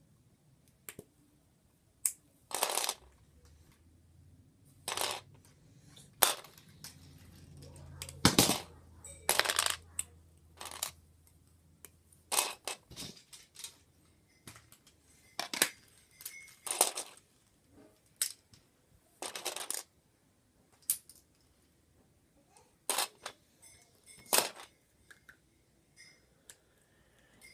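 Plastic Lego bricks being pulled apart and handled: irregular sharp clicks and short clatters every second or two.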